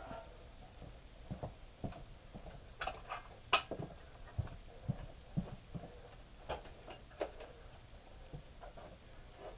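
Scattered light knocks and clicks of home-gym equipment being moved and set up, at irregular intervals, with a sharper click about three and a half seconds in.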